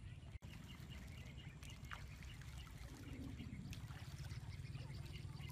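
Faint outdoor ambience: a low, steady rumble with light trickling of water.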